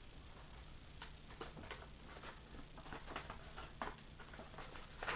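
Faint handling sounds of a small mailer package: scattered light taps, clicks and rustles at irregular intervals over a low room hum.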